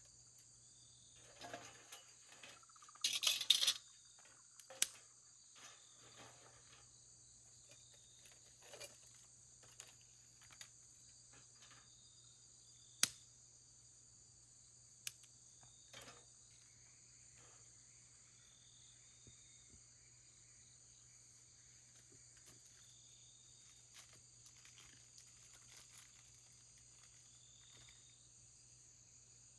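Faint, steady high-pitched chirring of crickets, with occasional light clicks and knocks of something being handled; the loudest are a cluster of clicks about three seconds in and two single sharp clicks near the middle.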